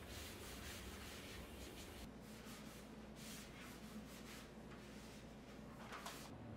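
Soft scraping and rubbing as a white wire dish rack is handled on its plastic drip tray and the countertop, in a series of short scratchy strokes with a stronger scrape near the end.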